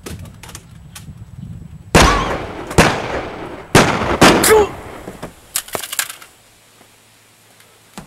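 Four pistol gunshots in quick succession over about two and a half seconds, each with a trailing echo, followed by a few fainter sharp clicks.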